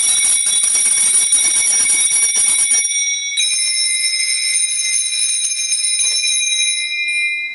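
Altar bells rung at the epiclesis of the Eucharistic prayer, marking the calling down of the Spirit on the bread and wine. A set of small high-pitched bells is shaken for about three seconds, then rung a second time after a brief pause and left to ring out, fading near the end.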